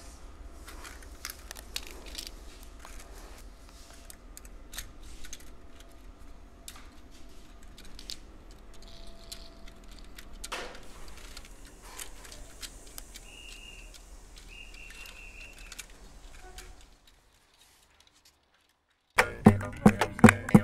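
Model railway cars clicking and rattling faintly over a low steady hum, with two short high beeps partway through. It goes silent briefly, then music with plucked strings starts near the end.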